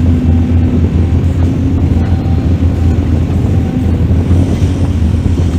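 Mining excavator's diesel engine running steadily: a loud, even, low drone.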